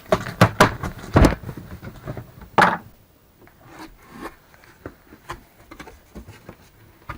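Cardboard shipping box being opened and the parts inside taken out: rubbing and scraping with a run of sharp knocks and clicks. It is busiest in the first three seconds, then thins to scattered quieter clicks.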